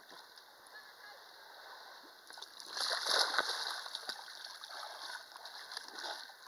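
A child slides off an inflatable rubber ring into shallow sea water with a loud splash about three seconds in, followed by splashing as she swims.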